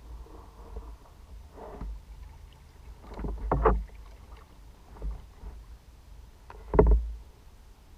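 Kayak paddle strokes in calm water: a short dip-and-splash every second or two, five or so in all, the loudest a little before halfway and near the end, over a faint low rumble.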